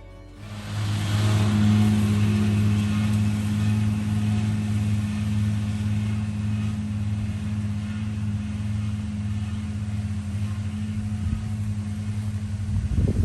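Steady low hum of a running motor, with a brief louder knock or rustle near the end.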